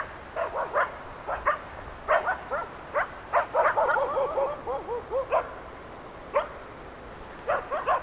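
Dogs barking over and over, with a quick run of barks in the middle and a few single barks towards the end.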